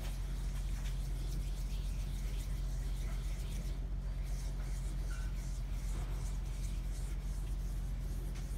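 A steady low hum, with faint rubbing and light ticks as the Bridgeport milling machine's table is hand-cranked side to side on its X-axis ways.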